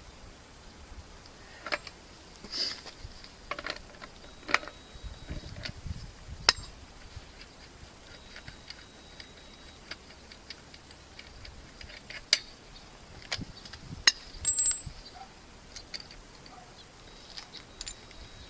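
Sporadic clicks and clinks of hand tools and metal motorcycle parts being handled, with a few sharp louder knocks among them and a brief high squeak about fourteen seconds in.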